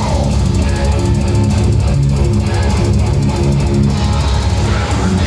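Live heavy metal band playing at full volume: distorted electric guitars and a pounding drum kit.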